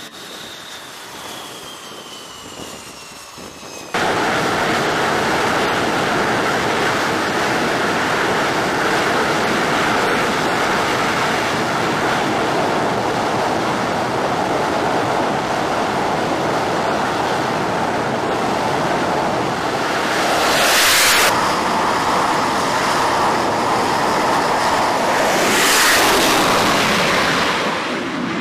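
F/A-18-type carrier jet engines on the flight deck: a high whine at first, then about four seconds in a sudden jump to loud, steady jet noise at full launch power. The noise swells louder twice in the last third as jets go off the catapult.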